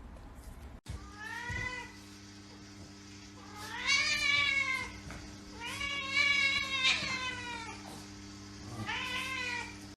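A cat meowing four times in long, drawn-out meows that rise and fall in pitch.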